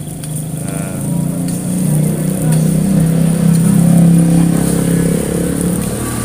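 A motor vehicle's engine passing close by, swelling to its loudest about four seconds in and then fading.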